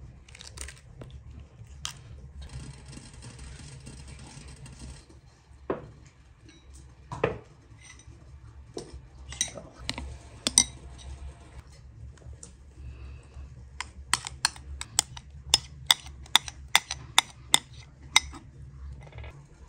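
Metal spoon clinking against a glass bowl while stirring a frothy yeast batter. Scattered clinks give way, near the end, to a quick even run of them, about three a second.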